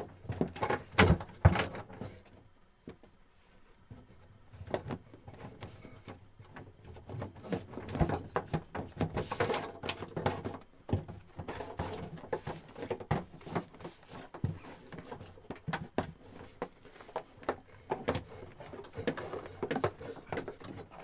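Handling noise of a reinforced PVC water hose being fed through bulkhead holes in a boat's wooden cabinetry: irregular knocks and thumps with hose scraping and rustling against the wood, the loudest knocks about a second in.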